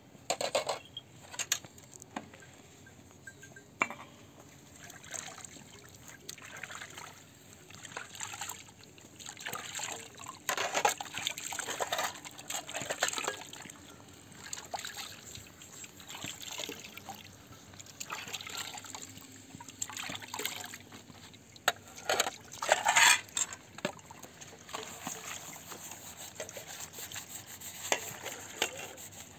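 Liquid poured and splashing into a metal pot in irregular bursts, with metal bowls and a lid clinking and scraping now and then.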